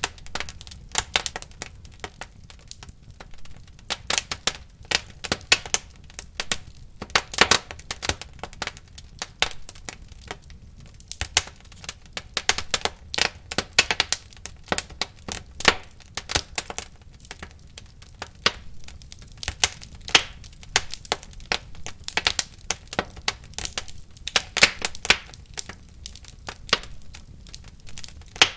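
Wood fire in a fireplace burning and crackling, with irregular sharp pops and snaps over a low steady rumble of the flames.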